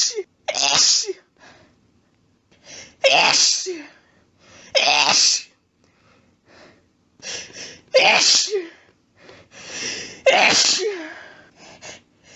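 A person sneezing repeatedly, about five sneezes a few seconds apart. Each sneeze is preceded by a quieter intake of breath and ends in a short falling voiced tail.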